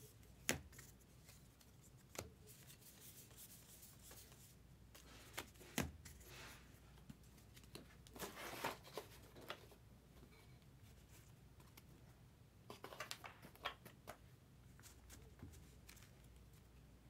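Trading cards being handled and flipped through: quiet sliding rustles and a few light taps, with a quick run of small clicks about thirteen seconds in.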